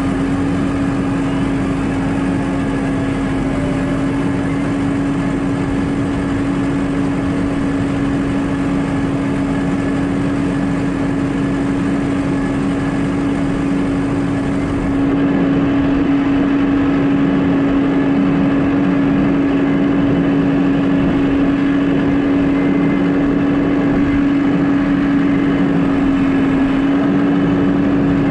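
Farm tractor's diesel engine running at a steady speed, a constant drone with one strong steady tone. About halfway through it gets a little louder.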